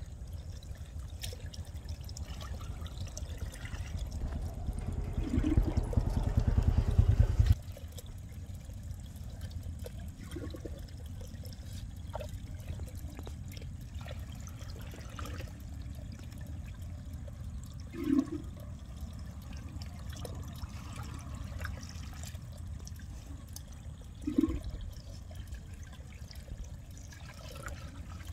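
Water running and trickling steadily through a drained channel into a fish trap, with a louder rush of water building for a few seconds and stopping abruptly about seven seconds in. Two brief thumps come later on.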